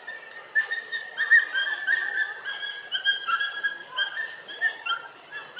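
Dog whining in a quick string of short, high, whistle-like whimpers that waver a little in pitch, the kind of whining a dog gives while tied during mating.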